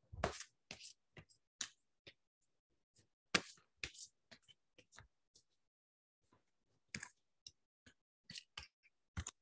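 Tarot cards being shuffled by hand: faint, irregular clicks and snaps of the cards, with a few sharper ones.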